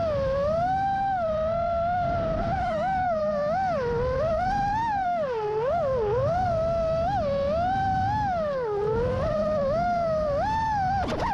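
FPV quadcopter's brushless motors and propellers whining in flight, the pitch constantly rising and falling with the throttle, over a low rush of air.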